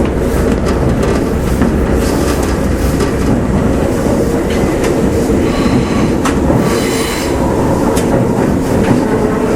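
Kintetsu 2610 series electric train heard from inside a motor car, rolling slowly into a station before stopping: a steady rumble with wheels clicking over rail joints and a high squeal partway through.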